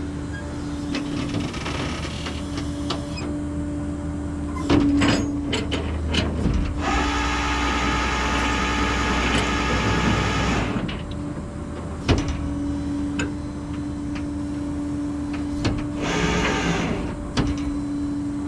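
Flatbed tow truck running with a steady hum, a loud mechanical whirring from about seven to eleven seconds in, and a few sharp metal clanks.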